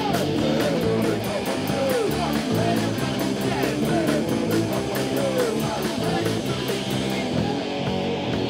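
Punk rock band playing live: electric guitars over a drum kit, the cymbals struck on a steady fast beat of about four to five hits a second.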